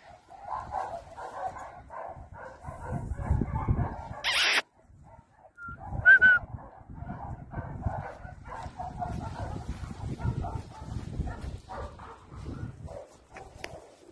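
Small dog barking in quick, repeated yaps. About four seconds in there is a loud brief rush of noise, a short near-silent gap, then one sharp high note.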